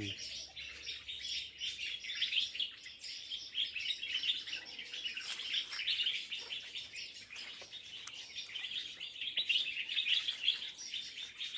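Many small birds chirping and twittering together in a dense, unbroken chorus.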